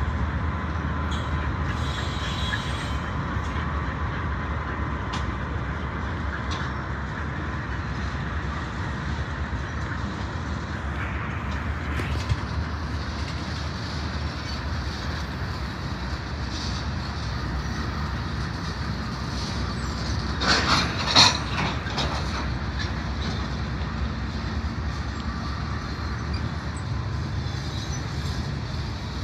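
Freight cars of a long train rolling past close by: a steady rumble of wheels on rail with scattered clicks, and a brief burst of loud sharp clanks about two-thirds of the way through.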